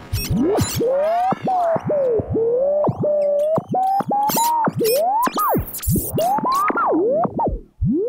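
Old radio being tuned across the band: whistling tones that swoop up and down in pitch as the dial sweeps past stations, broken by crackles of static and a few brief drop-outs.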